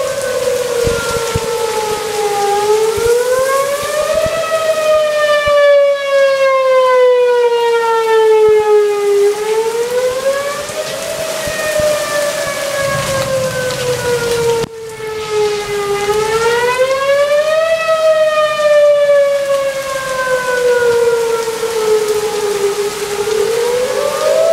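Outdoor tornado warning siren wailing, its pitch rising quickly and then falling slowly in a cycle of about six to seven seconds, with steady rain underneath.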